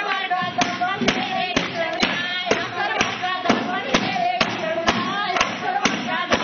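Women singing Punjabi boliyan together over a steady struck beat of about two thumps a second, from a reed winnowing basket (chhaj) being beaten.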